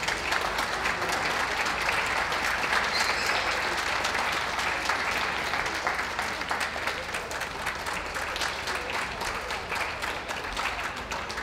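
Audience applauding, a dense patter of hand claps that gradually fades toward the end.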